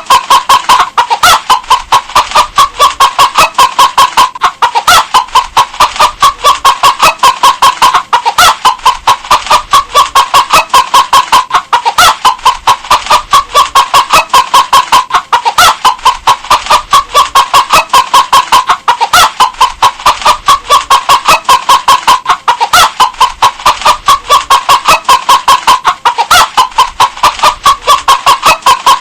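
A hen clucking continuously in quick, short, evenly spaced clucks, several a second.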